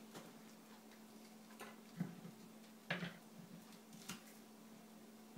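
Three light clicks of kitchen utensils, about a second apart and starting about two seconds in, over a faint steady hum.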